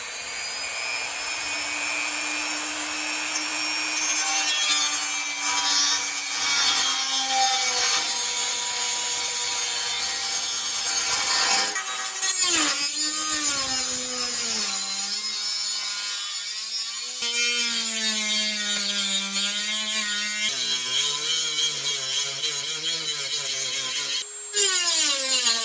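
Dremel 3000 rotary tool cutting through a rear brake dust shield. Its high motor whine holds steady at first, then wavers and drops in pitch again and again from about halfway, as the wheel bears into the sheet metal.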